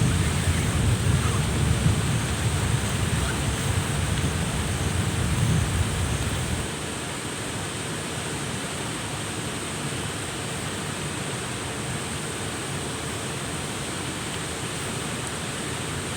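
Thunder rumbling low and dying away over the first six or seven seconds, then stopping abruptly. Under it and after it runs a steady, even hiss of water.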